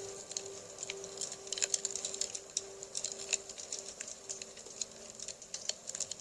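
Campfire crackling with irregular small pops and snaps, under the last of a singing bowl's steady low hum, which dies away about four and a half seconds in.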